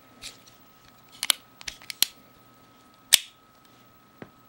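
Sharp metallic clicks of a Leatherman Super Tool 300 multitool's tools being opened and snapped shut. There are about five clicks, and the loudest comes a little past three seconds in.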